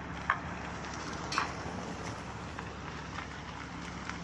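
A steady low mechanical hum with a few sharp clicks, the loudest about a third of a second in and another about a second later.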